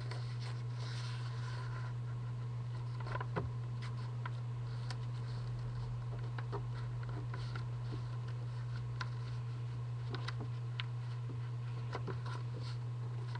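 A sheet of paper being folded and creased by hand on a table: soft rustling and scraping with scattered light ticks, over a steady low hum.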